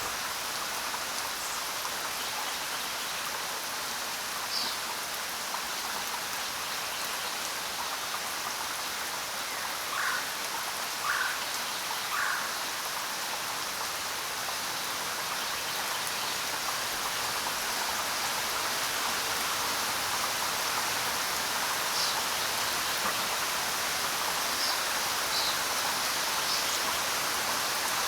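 Steady rain falling on the ground, an even hiss, with a few brief louder drop sounds, three in quick succession about a third of the way through.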